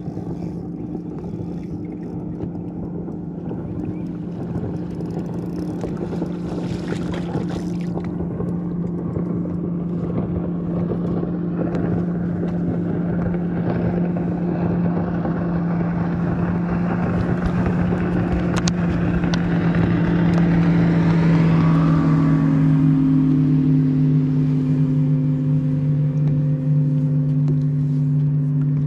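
Boat's outboard motor running underway, a steady hum over a rushing noise that grows gradually louder for the first twenty seconds, then drops a little in pitch about two-thirds of the way through.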